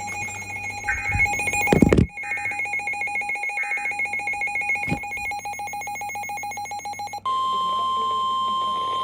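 Emergency alert tones. First a rapidly pulsing electronic alarm on two pitches, with a loud low rumble under it that cuts off sharply about two seconds in. About seven seconds in it switches to a steady single unbroken tone.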